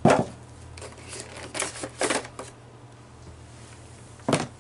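Clear plastic action-figure packaging being handled and opened: a few sharp plastic clicks and crackles, the loudest right at the start and another near the end.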